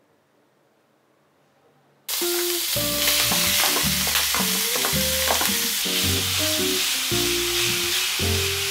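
Near silence for about two seconds, then ground meat sizzling loudly in a hot frying pan as a wooden spatula stirs and breaks it up. The sizzle starts suddenly, with background music under it.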